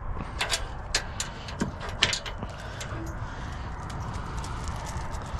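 Irregular sharp clicks and light knocks of hands handling small parts and wires, thickest in the first half, over a steady background hiss.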